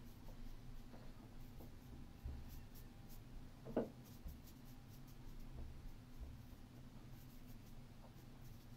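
Faint soft brushing of a Chinese ink brush stroking across paper pinned to a felt board, with a brief louder sound a little under four seconds in.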